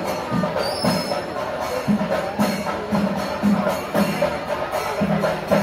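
Kerala temple-festival percussion for a thira performance: chenda drums beating an even rhythm about twice a second, with cymbals clashing along with them.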